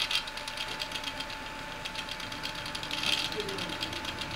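Stepper motors of a small drawing laser projector moving its scanning mirrors: rapid ticking chatter over a steady whine, getting louder for a moment about three seconds in as the projected figure changes.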